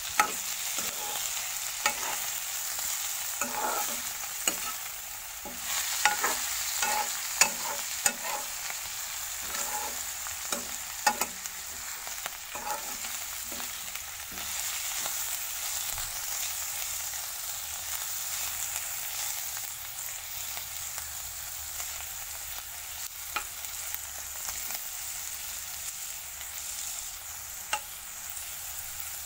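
Sliced bitter gourd and onions sizzling in oil in a kadai over low heat, with a steady hiss, while a metal spatula scrapes and clacks against the pan as the vegetables are stirred. The stirring strokes come thick in the first dozen seconds, then only now and then.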